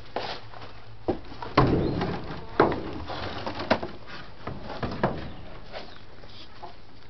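Chickens clucking softly, with about five short, sharp sounds spread irregularly through it.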